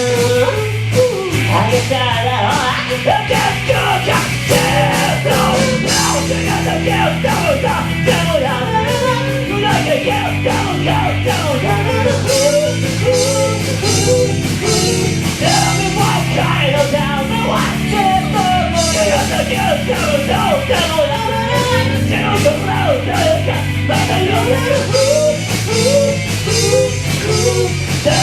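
A band playing a rock song with a sung lead vocal over held bass notes and steady cymbal hits.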